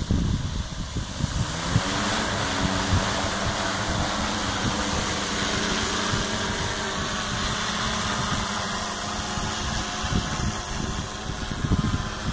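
DJI Matrice 600 Pro hexacopter's six rotors spinning up, rising in pitch about a second and a half in as it lifts off, then a steady whirring hum as it climbs and hovers.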